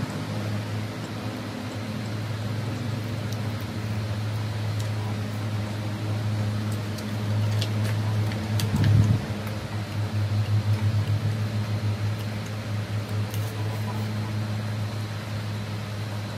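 Steady low mechanical hum, like a fan running, with a few faint clicks around the middle and a short pulsing stretch after them.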